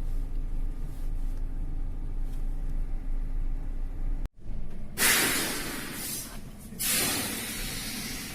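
Steady low drone of a van's engine heard inside the cab. A little over four seconds in it cuts off sharply, and a loud gusting hiss of blizzard wind on the microphone follows, swelling and easing in gusts.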